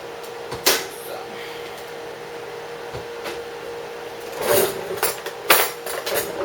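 Kitchen utensils being handled on a counter: a single sharp knock under a second in, then a run of knocks and clinks near the end, over a steady faint hum.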